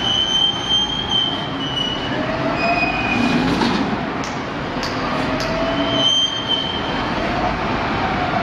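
Scrap metal dumped from a wheel loader's bucket, clattering and scraping into the steel charging box of a scrap baler shear, with high metal-on-metal squeals near the start and again near the end and a few sharp knocks midway, over the loader's running engine.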